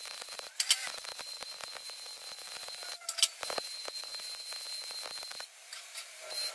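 Arc welding on steel fence posts: the arc crackles steadily with a high whine in three runs, each restrike starting with a sharp pop, about half a second and three seconds in. The welding stops about five and a half seconds in.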